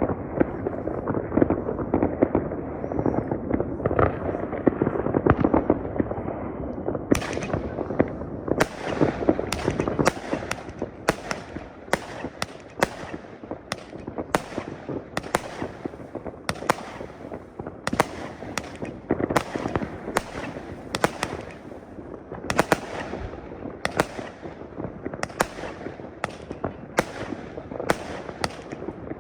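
Fireworks going off: a dense, continuous crackle of many fireworks, then from about seven seconds in a rapid run of sharp, close bangs, several a second.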